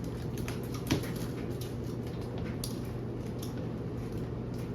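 Scattered light clicks and taps of a box and its contents being handled and unpacked, with one louder knock about a second in, over a steady low room hum.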